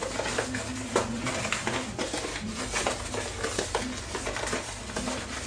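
Dry couscous being stirred in a container, with repeated scraping and light clicks of the utensil against the container.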